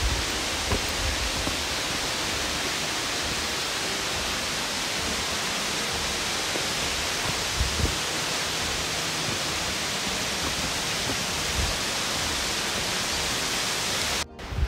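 Steady rush of falling water from a rainforest creek cascade or small waterfall, an even hiss with a few faint low thumps; it cuts off abruptly just before the end.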